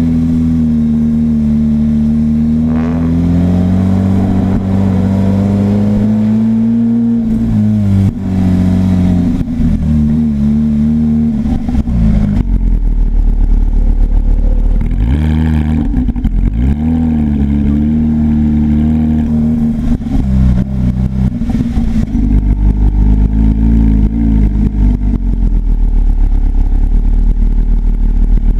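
Porsche 991 GT3 flat-six running through a GMG aftermarket exhaust, its pitch rising and falling with the throttle. About halfway through it drops to low revs with an uneven, crackling exhaust burble.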